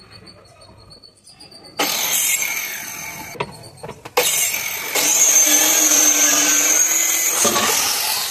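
Handheld electric circular saw cutting a plywood sheet. It starts sharply about two seconds in, stops for under a second, then runs on through a longer cut with a steady whine.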